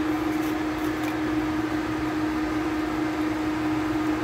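Induction cooktop running with a steady hum: its cooling fan and a constant mid-low tone.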